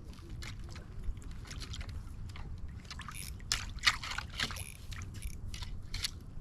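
Water sloshing and splashing lightly, with scattered small clicks and knocks over a low steady rumble.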